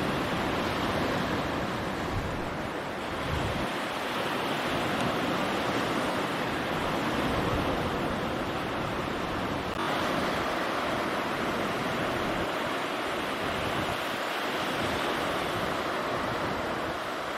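Steady wash of waves on the shore, with wind gusting on the microphone.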